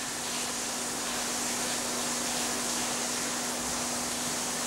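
Steady hiss of running water over salmon roe on a gauze sieve, with a steady hum underneath.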